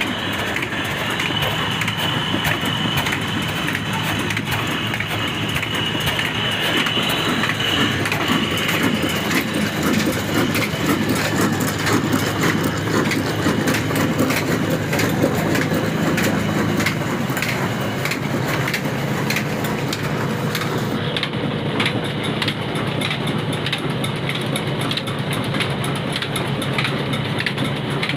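Old 24 hp single-cylinder horizontal diesel 'black engine' running steadily under load, belt-driving a flour mill (atta chakki): an even, rapid run of knocks from the engine over a steady low hum from the flywheels, belt and mill.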